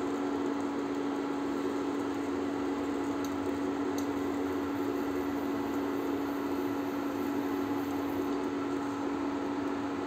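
Steady electrical hum with one constant low tone, from an induction cooktop running under a pan, with a few faint ticks about three to four seconds in.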